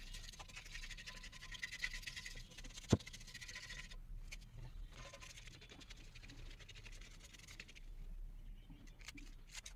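Faint scraping of a flat scraper over a motorcycle fuel tank, lifting paint softened by paint remover. The scraping is louder in the first four seconds, with a single sharp tick about three seconds in.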